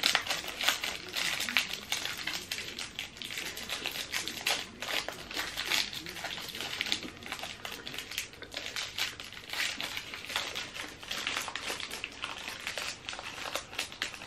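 Chocolate bar wrapper crinkling and crackling in the hands as it is picked open, in a run of irregular crackles.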